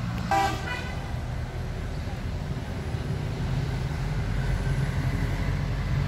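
A motor vehicle's engine runs steadily with a low hum that strengthens toward the end, and a horn gives one short toot about half a second in.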